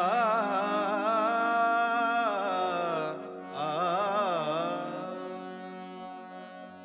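The final held notes of a Marathi bhajan: a singer draws out two wavering, wordless phrases over a steady instrumental drone, and the music then dies away.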